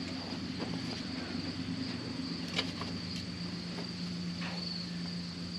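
Aftermarket electric fuel pump running steadily as it primes the carburetor: a constant low hum with a high, steady whine above it and a couple of faint clicks.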